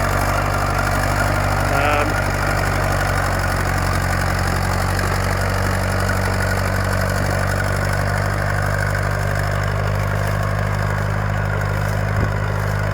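County Super 4 tractor's four-cylinder diesel engine running at a steady speed, with one short tick near the end.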